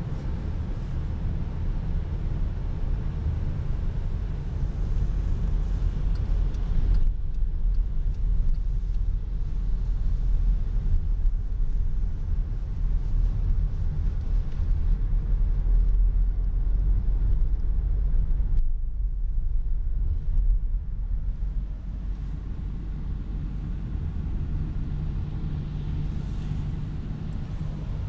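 Steady low rumble of a car's engine and tyres heard from inside the cabin while driving on a snowy road.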